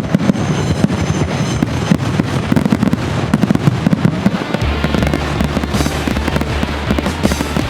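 Dense, rapid crackling and popping of fireworks and firecrackers. About halfway through, music with a steady low bass comes in underneath.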